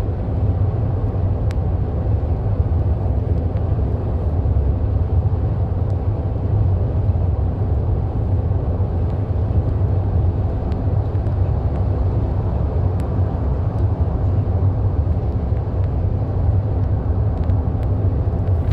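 Steady low road and engine rumble of a car cruising at freeway speed, heard from inside the car.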